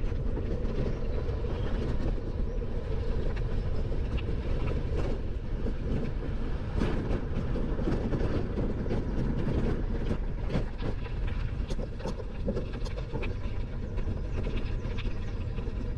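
Riding noise of a bicycle on a path: tyres rolling and a steady low rumble, with many small rattling clicks scattered through it.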